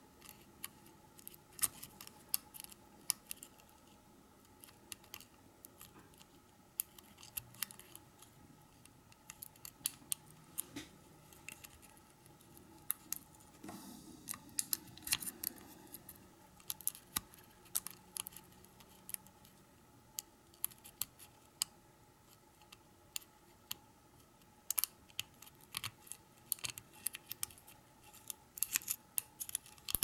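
Steel lock pick working the pins of a Chateau C970 disc padlock against a tension wrench: small, irregular metallic clicks and ticks, coming in clusters.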